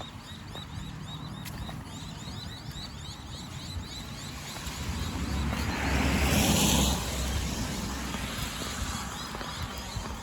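A car passes on a wet road: its tyre hiss swells to a peak a little past halfway and then fades. Under it there is a steady low rumble, and a run of faint, repeated high chirps.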